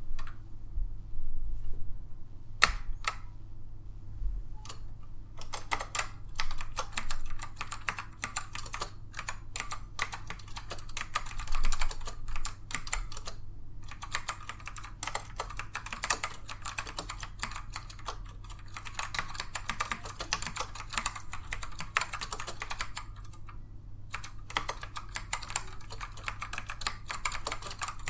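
Typing on a Dell AT102W keyboard with tactile, non-clicky black Alps switches: a few separate keystrokes at first, then fast continuous typing from about five seconds in, pausing briefly twice.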